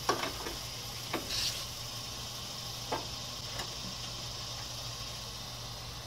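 Gas grill with its burners lit, hissing steadily, as a rotisserie spit loaded with Cornish hens starts turning; a handful of light metallic clicks from the spit and its forks come in the first few seconds, over a low steady hum.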